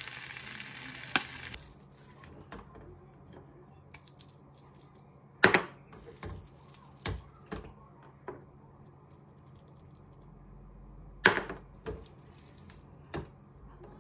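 Kimchi fried rice sizzling in a frying pan for about the first second and a half, with a sharp click near its end. Then a run of sharp knocks and scrapes as the rice is served onto a ceramic plate with a spatula, the loudest about five and a half and eleven seconds in.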